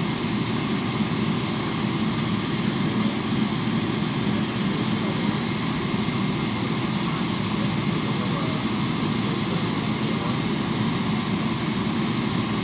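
Steady low drone heard inside the cabin of a Boeing 777-300ER, its GE90 engines running at idle on the ground.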